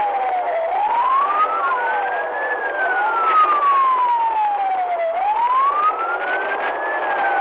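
Police car siren in wail mode, slowly rising and falling about every four and a half seconds, with a second, fainter siren wailing out of step with it, over the cruiser's road noise at highway speed.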